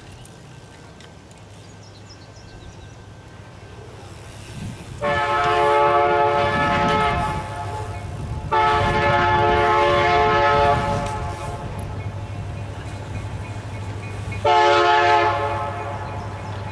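Locomotive horn blowing two long blasts and then a short one, in the pattern of the warning given at a level crossing, over the train's low rumble, which builds from about four seconds in.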